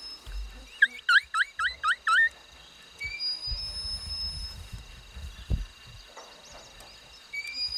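A songbird singing a fast run of six rising whistled notes, about four a second, about a second in, with another bird's short high whistle repeating every few seconds. A low rumble in the second half, with a sharp low thump near the end of it.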